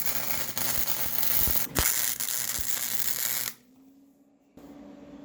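Degreaser spraying onto steel bandsaw-blade pieces in a steady hiss, with a few clicks and knocks of the metal pieces being handled. The hiss cuts off suddenly about three and a half seconds in, and after a short pause a low steady hum starts.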